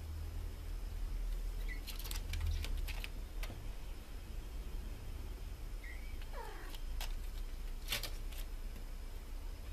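Kittens mewing: a couple of short high mews and one falling mew about six and a half seconds in, with scattered sharp taps as they paw at the window glass.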